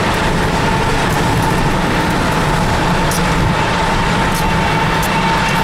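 Union Pacific diesel locomotive hauling a freight train past: a steady, loud rumble of engines and rolling wheels with a constant high tone running through it.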